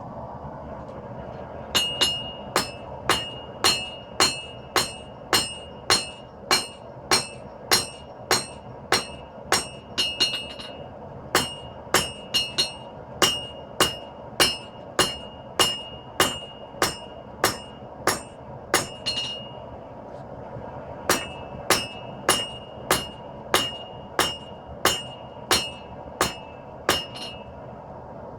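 Hand hammer striking hot 5160 spring steel on an anvil as the bar is drawn out, about two blows a second in three runs with short pauses, each blow ringing with a high metallic ring. A steady rush from the forge runs underneath.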